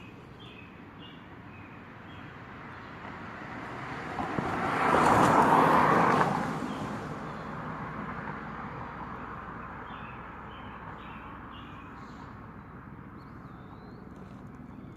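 A vehicle passing by: a broad rush of noise that swells to a peak about five to six seconds in, then fades away over the next few seconds.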